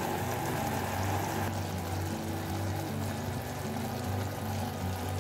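Chopped jackfruit simmering in melted jaggery syrup on a low flame, bubbling steadily as it cooks down, with soft background music underneath.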